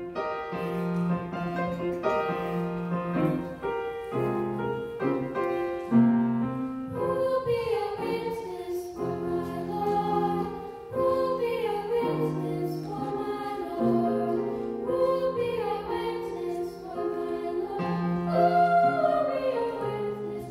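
Choir singing with keyboard accompaniment, a slow piece of church music with long held notes.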